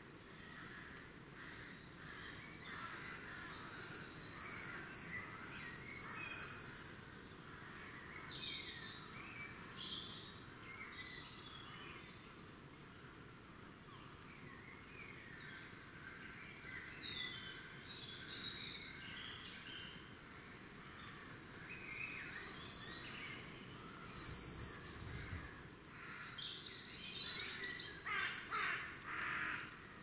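Woodland birdsong: several small birds singing and chirping, with loud bursts of fast, rapid song a few seconds in and again after about twenty seconds. Crows cawing near the end.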